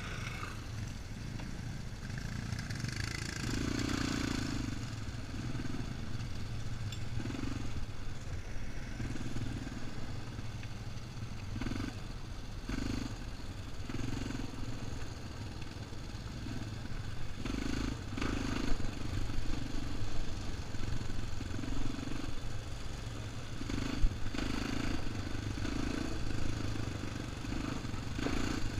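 ATV (quad bike) engine running under way on a dirt trail, its drone rising and falling with the throttle, with a few sharp knocks and rattles from the bumps along the way.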